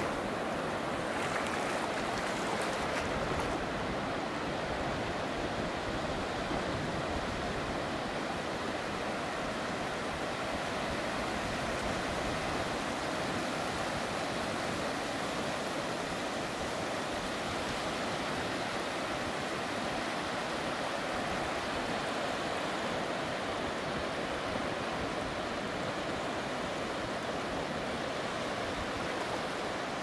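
Ocean surf washing over a flat sandy beach: a steady, even rush of small breaking waves and foam.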